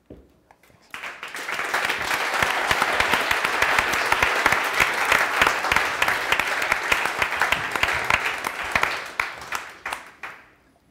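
Audience applause, many hands clapping: it builds up about a second in, holds steady, and dies away near the end.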